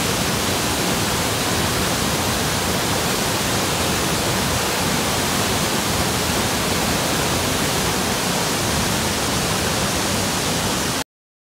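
River Tees waterfall pouring over rocks in a narrow gorge, a loud, steady rush of falling water that cuts off suddenly near the end.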